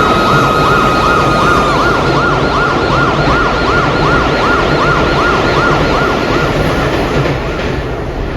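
Emergency vehicle siren in fast yelp mode, about three rising-and-falling wails a second, with a steady high tone held over it for the first couple of seconds. The wail fades near the end over a constant rumble of street traffic.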